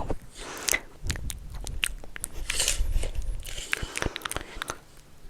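Close-miked ASMR trigger sounds: irregular sharp clicks with soft crackling between them.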